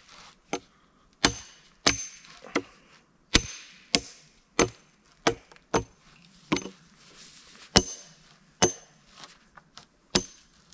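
Axe chopping the small branches and branch stubs off a wooden pole: a run of sharp chops, about one every two-thirds of a second, some with a short high ring.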